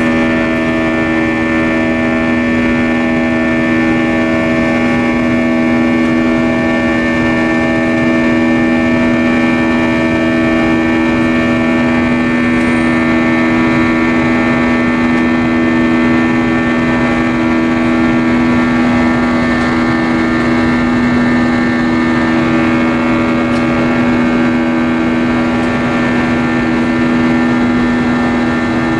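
Cabin drone of an Airbus A320-232 in flight, heard inside the cabin beside the wing-mounted IAE V2500 turbofan engine: a steady, loud hum with several held tones over a rushing noise, unchanging throughout.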